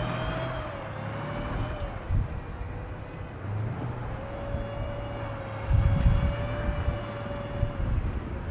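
WZT-2 armoured recovery vehicle, its V12 diesel running as it manoeuvres on sand: a low rumble with a wavering whine over it, the rumble swelling louder about six seconds in.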